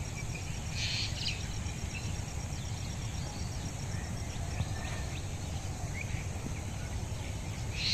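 Quiet rural field ambience: a steady low background rumble with a few faint short bird chirps, and a high, rapidly pulsing insect trill through the first three seconds.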